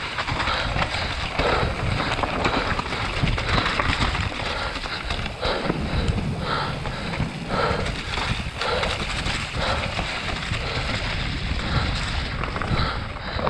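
Wind noise on the microphone mixed with tyre and frame noise from a mountain bike riding fast down a dirt enduro trail.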